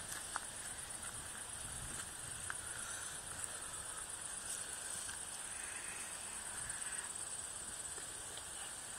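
Night insects trilling steadily in a high pitch, with a few faint clicks.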